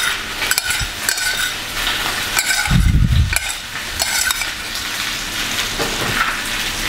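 Metal spoon clinking and scraping against a stainless steel saucepan as pasta is stirred and lifted, over a steady sizzle of food frying; a dull bump about three seconds in.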